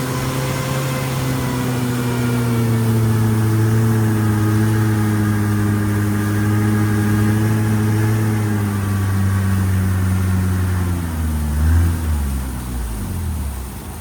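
Boat engine running steadily. Its pitch sags slowly, then drops away near the end as the engine slows down.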